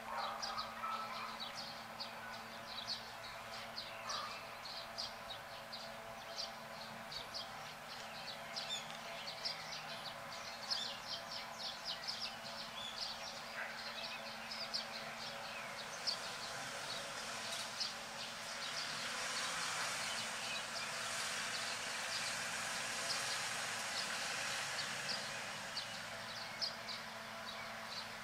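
Outdoor ambience: many quick, high chirps over a steady low hum, with a hiss that swells for several seconds in the second half.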